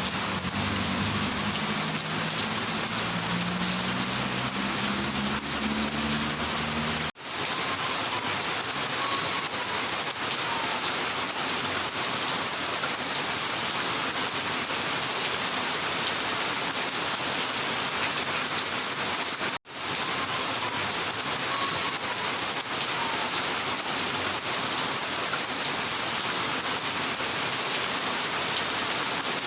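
Rain falling steadily. For the first seven seconds a low engine hum, rising slightly in pitch, sits under it. The sound cuts out for an instant twice, about seven and twenty seconds in.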